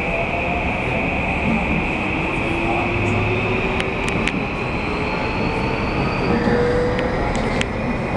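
Tokyu 3020 series train's Mitsubishi full-SiC VVVF inverter and traction motors heard from inside the car as the train pulls away and accelerates: a steady high whine that changes about six seconds in, under motor tones that rise steadily in pitch, with a few light clicks.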